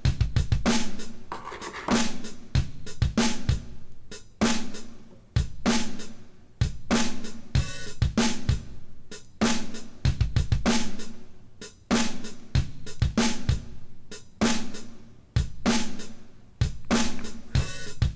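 Background music with a steady drum-kit beat of kick, snare, hi-hat and cymbal.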